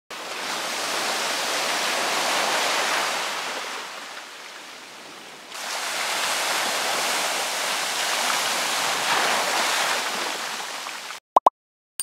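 Sea waves washing in over slush and broken ice floes at a frozen shoreline: a steady rushing hiss that fades for a moment and returns about five and a half seconds in. Near the end, two short beeps.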